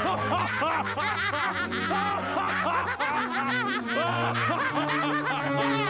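Cartoon characters laughing together in quick, repeated chuckles and snickers over background music with a steady bass line.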